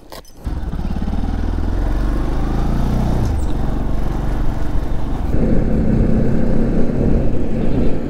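Motorcycle engine starting with a click about half a second in, then running steadily as the bike pulls away; the sound grows denser and louder about five seconds in as it gathers speed.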